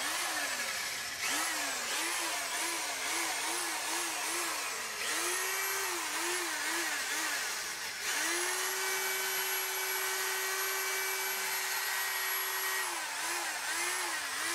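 Power drill spinning a sanding pad against a plastic headlight lens, its motor whine repeatedly dipping in pitch and recovering about twice a second, then held at a steady speed for about five seconds before dipping again near the end.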